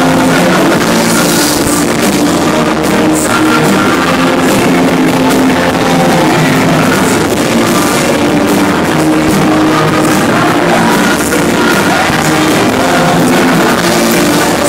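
Live rock band playing loud and steady, with electric guitars and drum kit, on a loud, distorted amateur recording.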